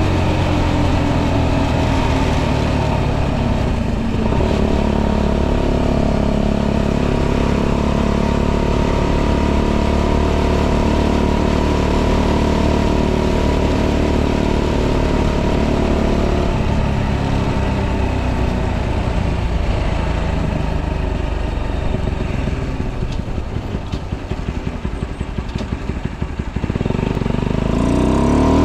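A tuned 125cc motorcycle engine with modified intake and exhaust, running steadily under way. About three-quarters of the way through, the throttle closes and the engine note drops and turns uneven. Near the end it revs up again with a rising pitch.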